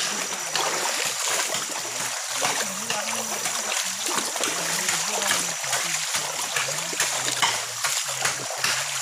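Leaves and brush rustling and crackling as someone pushes through dense undergrowth, over a steady hiss and a thin high whine.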